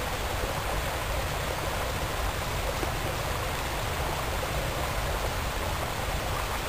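Steady, even rushing noise with no separate events standing out.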